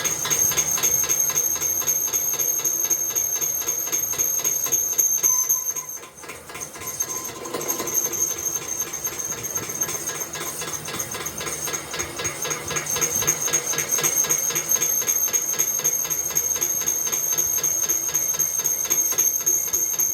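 Metalworking machine running steadily with a high-pitched squeal, easing off briefly about six seconds in and then resuming.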